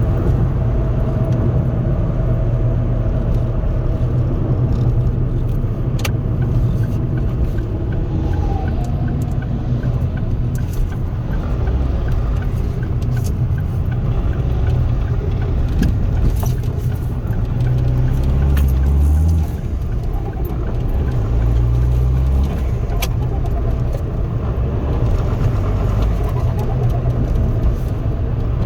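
Remapped Ford Focus 1.8 TDCi four-cylinder turbodiesel and road noise heard from inside the cabin while driving, a steady low drone. About two-thirds of the way through, the engine note rises, then drops away briefly. A few sharp clicks stand out over it.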